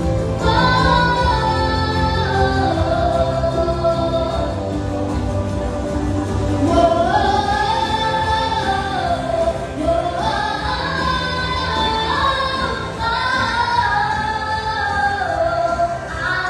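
Gospel song: a group of voices singing a melody in long held notes over steady instrumental accompaniment.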